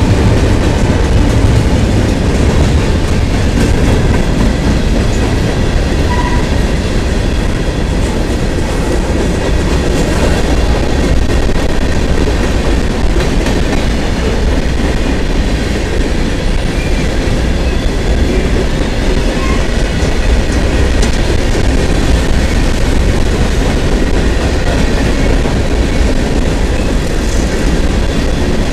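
CSX freight train's gondolas and covered hopper cars rolling past close by: steady heavy rumble and clatter of steel wheels on the rails, with a faint thin wheel squeal.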